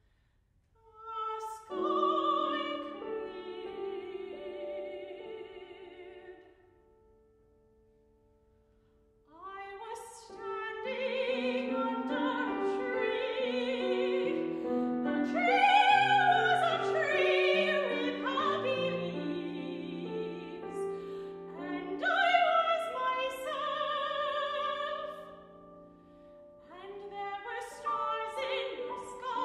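Soprano singing a classical art song with a wide vibrato, accompanied by a grand piano. The music pauses briefly at the start, and again about a third of the way in, where a held piano note dies away almost to silence before voice and piano come back in.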